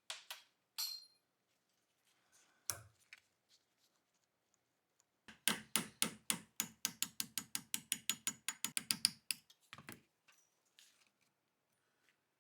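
A few single sharp clicks and a knock, then a rapid even run of about thirty sharp mechanical clicks, roughly seven a second for about four seconds.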